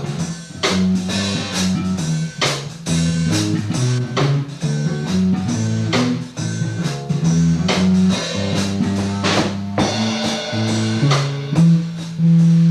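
A rock band playing with drum kit, guitar and bass guitar: a moving bass line under repeated drum hits.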